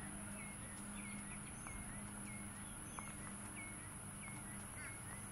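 A bird calling over and over in short chirps, about three a second, with a steady high-pitched hiss or drone behind it.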